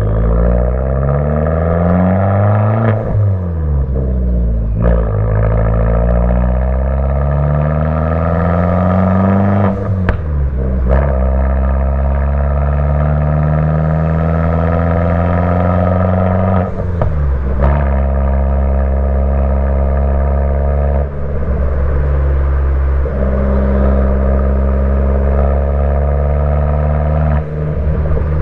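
Fiat 500 Abarth's turbocharged 1.4-litre four-cylinder running through an MPx cat-back exhaust while driving. The engine note climbs in pitch and breaks off briefly at each gear change, several times, and holds steadier in the second half.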